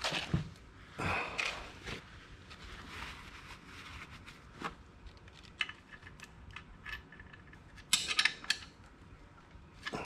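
Scattered light metallic clicks and clinks of hand tools and a part being fitted to the underside of a motorcycle engine during an oil change, with a quick cluster of clicks near the end.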